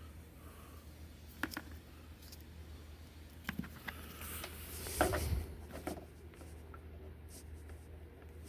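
Scattered small clicks and rustles of handling, the loudest a knock with a dull thump about five seconds in, over a steady low hum.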